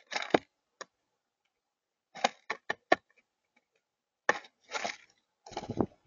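Blue jay moving about the feeder table right beside the microphone: about five short clusters of sharp clicks, knocks and scrapes, with quiet gaps between them.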